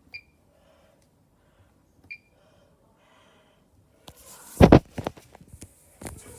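Two short electronic beeps about two seconds apart from a Bosch washing machine's control panel as its buttons are pressed. In the second half comes a loud thump, followed by a clatter of knocks and rustling.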